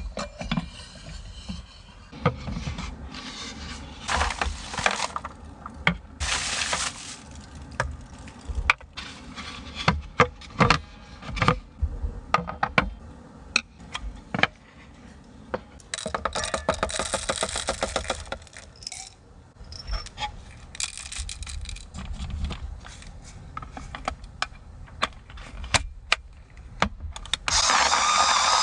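Small hard objects being handled: irregular clinks, knocks, scrapes and rattles, with a few brief louder rustling or hissing stretches, the longest about two-thirds of the way in.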